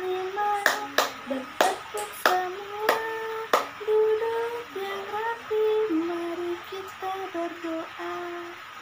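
Women singing a children's hand-clapping song, with about six sharp hand claps in the first three and a half seconds, then the sung melody goes on with hardly any claps.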